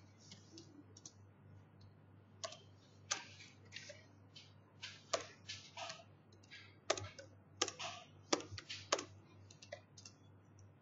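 Computer keyboard typing: irregular keystrokes in short runs with pauses between, over a steady low hum.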